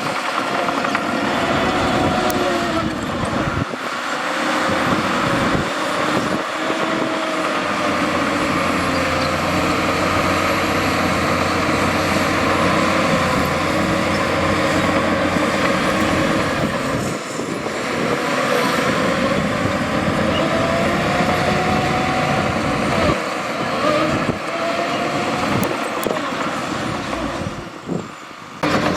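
Heavy diesel earthmoving machinery working under load, with a steady engine noise and a whining tone that rises and falls several times.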